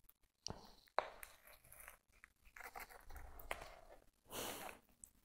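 Faint rustling and crackling with a few sharp light clicks as a potted begonia is handled: leaves being touched and straightened and the plastic pot shifted in the hands.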